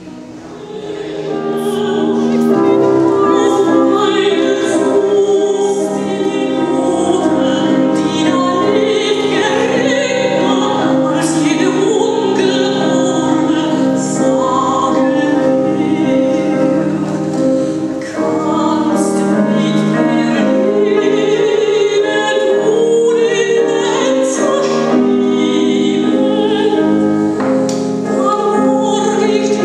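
Classical vocal music with sustained sung notes, fading in over the first two seconds and then playing loudly throughout.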